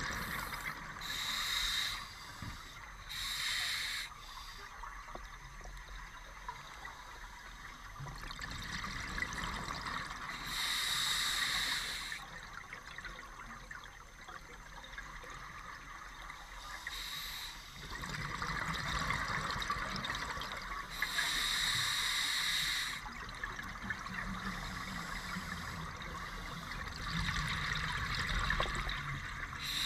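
Scuba diver's open-circuit regulator underwater: bursts of exhaled bubbles every few seconds, each lasting a second or two, with a fainter hiss between them.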